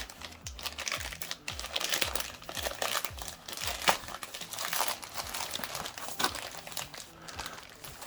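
Packaging crinkling and rustling as it is handled and unwrapped, in irregular bursts with a sharp crackle about four seconds in.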